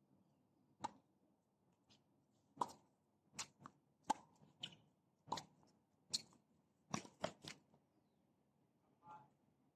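A tennis rally on a hard court: a serve, then a string of sharp pops from racket strings striking the ball and the ball bouncing, about a dozen in all, some in quick pairs. A short, faint pitched sound comes near the end.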